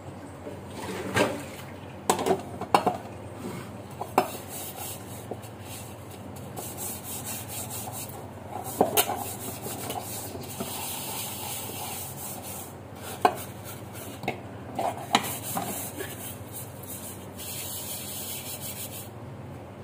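Metal pots and dishes being scrubbed and handled at a kitchen sink: a rubbing, scrubbing noise with sharp metal clanks and knocks scattered throughout, and a steady hiss through the second half.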